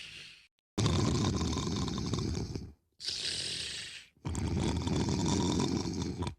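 Loud snoring, two full cycles: each a low, rattling snore about two seconds long, then a shorter breathy hiss. Each part cuts off abruptly into a brief silence.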